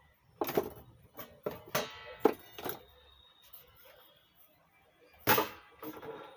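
Handling knocks and clacks from opening the case of an Ahuja SSA-250M amplifier: a run of sharp, irregular clacks in the first three seconds and a louder knock about five seconds in.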